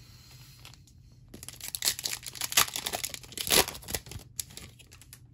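A trading-card pack's wrapper being torn open and crinkled by hand: a dense run of crackling and ripping that starts about a second in, lasts about three seconds with the loudest rips near the middle, then stops.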